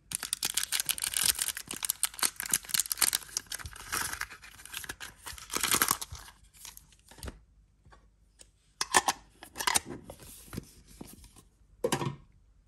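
Foil booster-pack wrapper crinkling and rustling in the hands as it is pulled out of a small metal tin. A dense run of crackling lasts about seven seconds, followed by a few short crinkles.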